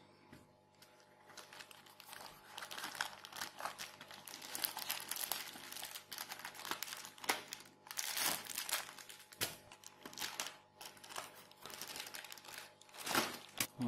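Plastic packaging bags crinkling and cardboard rustling as hands work contents out of a cardboard box insert, in irregular crackles that keep up throughout.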